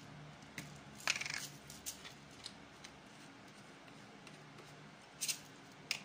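Hand pepper grinder being twisted to season meat: a few short bursts of gritty crunching, the longest about a second in and two more near the end.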